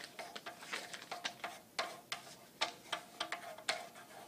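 Pencils sketching on paper against a desk: quick, irregular scratching strokes and light taps.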